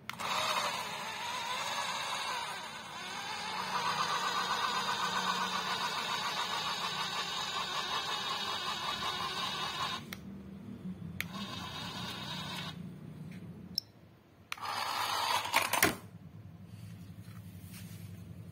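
Small electric motors and plastic gearboxes of toy RC cars whirring steadily for about ten seconds. The whir then stops and starts in shorter runs, with a few clicks and a louder burst near the end.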